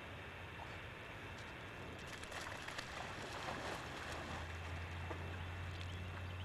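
Water splashing as a field-bred English cocker spaniel plunges into a pond and swims out on a retrieve, with a cluster of sharp splashes about two to four seconds in. A steady low hum runs underneath.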